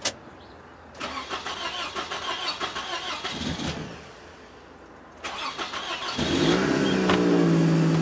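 1998 Toyota Camry being started: the starter cranks for about three seconds without a catch, pauses, then cranks again. About six seconds in the engine fires and settles into a steady idle, its crank-no-start cured by a newly fitted used OEM fuel pump.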